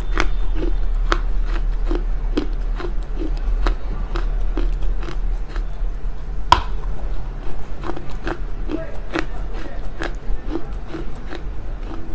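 Smoked loess clay being bitten and chewed close to a lapel microphone: dry crunches about two to three a second, with one louder crack of a bite about halfway through. A steady low hum runs underneath.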